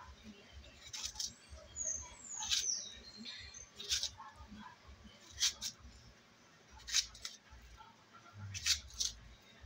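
Knife slicing a firm, peeled green plantain into rounds in the hand: a short, crisp cut about every second and a half, seven or so in all.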